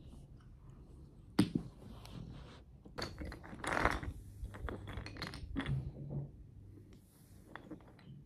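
Toy alphabet blocks knocking and clattering as they are handled and stacked, with one sharp knock about one and a half seconds in and a busier run of clicks a couple of seconds later.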